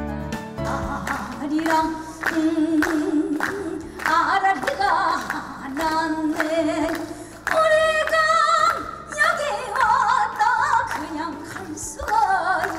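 A woman singing a Korean folk song solo into a microphone, largely unaccompanied, her held notes wavering in wide vibrato. Background music fades out about half a second in.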